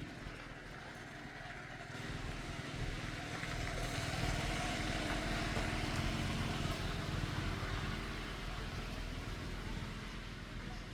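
A motor engine running in the background, getting louder a few seconds in and then slowly fading.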